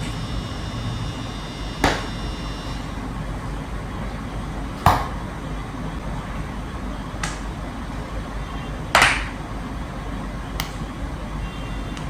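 Five sharp joint cracks, a person popping their own joints one at a time, spaced one to three seconds apart. The fourth pop is the loudest, and all of them sit over a steady background hum.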